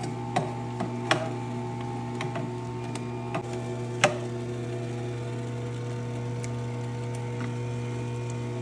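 Electric juicer motor running steadily with a constant low hum as fruit is fed through it. A few sharp clicks and knocks come in the first half, as pieces go down the chute.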